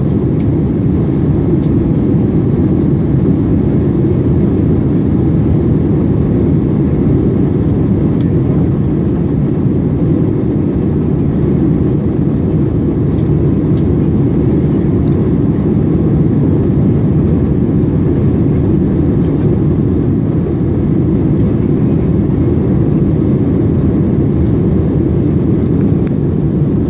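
Steady, loud rumble inside an airliner cabin in flight: engine and airflow noise, deepest in the low range, with a few faint clicks.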